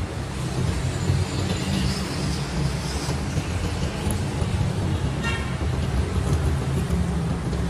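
Steady low rumble of road traffic and engines, with a brief high-pitched toot about five seconds in.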